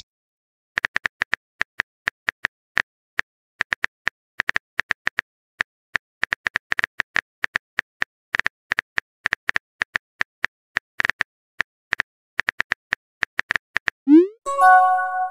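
Rapid, irregular tap clicks of a texting app's on-screen keyboard as a message is typed. Near the end comes a short rising swoop and a chime: the message-sent sound.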